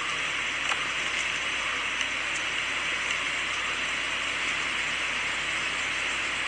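Steady hiss from the soundtrack of a dark night-time clip, with a few faint ticks.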